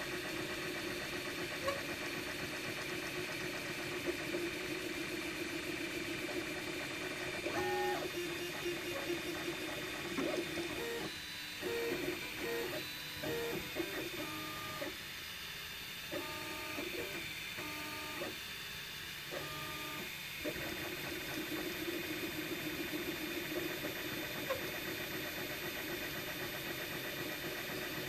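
MakerBot Replicator 2 desktop 3D printer running a print: a steady hum from the extruder fan and motors. For several seconds in the middle the stepper motors give a run of short pitched notes that change from one to the next as the head makes quick moves.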